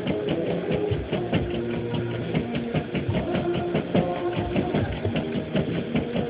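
Chef's knife chopping red chiles on a plastic cutting board, quick even strokes at about six a second, with music playing in the background.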